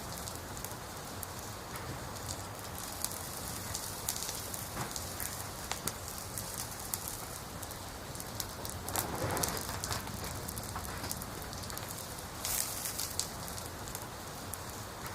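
Campfire of burning firewood crackling and popping steadily, with a denser, louder flurry of crackles about nine seconds in.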